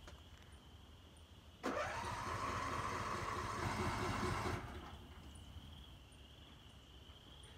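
Riding lawnmower's electric starter cranking the engine for about three seconds: it starts suddenly with a rising whine, then runs steadily and cuts off without the engine catching, a failed cold start.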